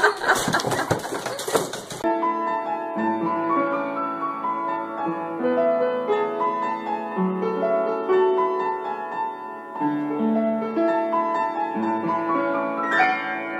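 Upright piano being played: chords and a slow melody over held low notes. It begins about two seconds in, after a short stretch of noisy clatter.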